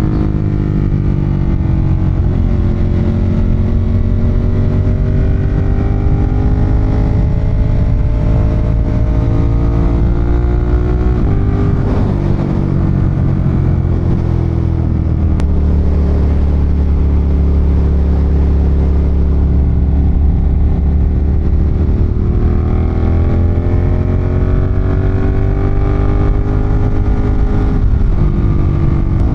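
Ducati Monster 1200's L-twin engine pulling under way, its pitch climbing slowly, then dropping about eleven seconds in and again a few seconds later. It holds steady for a while, then climbs once more and drops near the end.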